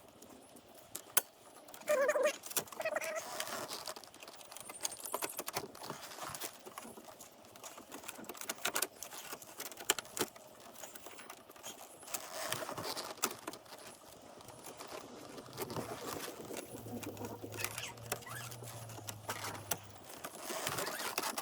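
Scattered clicks, taps and light rattles of hand tools and plastic dash parts being handled while the dash is taken apart, with a low hum for a few seconds near the end.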